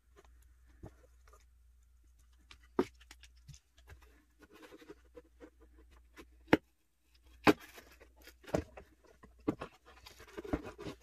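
Scissors cutting through corrugated cardboard: sharp snips and crunches, coming about a second apart in the second half, with cardboard rustling and scraping between them.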